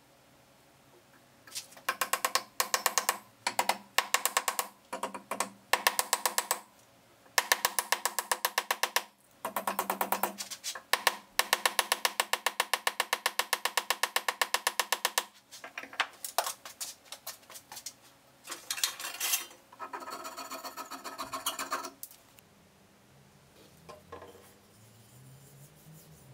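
Rapid mallet taps driving a thin wooden wedge into the top of the axe handle to lock the head on. The taps come in quick runs of a second to a few seconds with short pauses, starting about a second and a half in and stopping a few seconds before the end.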